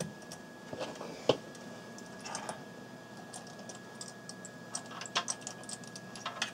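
Scattered small clicks and taps of a JiffyDOS ROM adapter board being handled and pressed against the chip socket on a Commodore 1541 drive's circuit board, which it will not yet seat in. The sharpest click comes about a second in, with a cluster of quicker clicks near the end.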